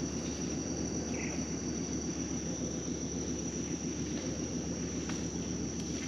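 Steady high-pitched drone of rainforest insects over a constant low rumble, with one short faint call about a second in.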